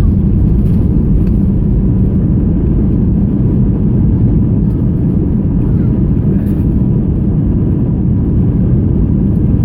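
Airbus A321 cabin noise during landing: a loud, steady, low rumble from the engines, airflow and wheels, with a faint steady whine above it.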